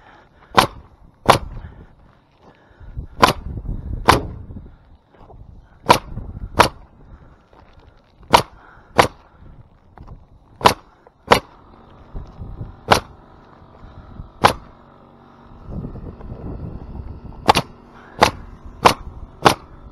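Bostitch pneumatic coil roofing nailer firing nails through ridge vent into an asphalt shingle roof: about sixteen sharp shots, mostly in quick pairs, with a pause of a second or two between pairs.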